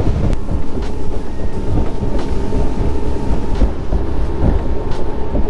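Bass boat running at speed on open water: its outboard motor drives steadily under heavy wind on the microphone, with a faint knock about every second and a half.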